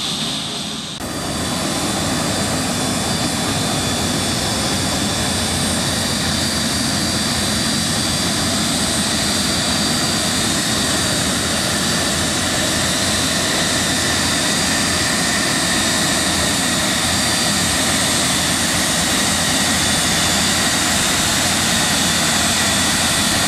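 PZL I-22 Iryda M-93M twin-engine jet trainer's engines running at low ground power: a loud, steady jet whine with several high, steady tones.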